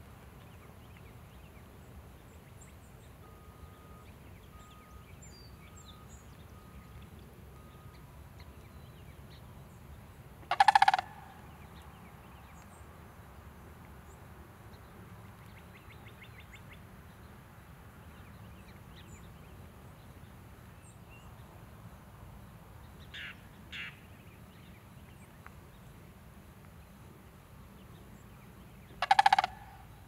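Sandhill crane calling: two loud calls of about half a second each, about ten seconds in and again near the end, with two fainter short calls in between.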